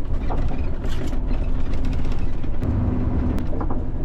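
Bus driving along, heard from inside the cabin: a steady engine hum and low road rumble.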